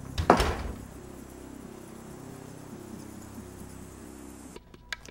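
A door slammed shut once, a single hard bang with a short ring-out, followed by quiet background sound.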